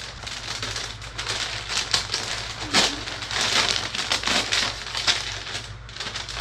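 A plastic mailer bag and its paper wrapping crinkling and rustling in a dense, continuous run of crackles as the bag is opened and a garment is pulled out.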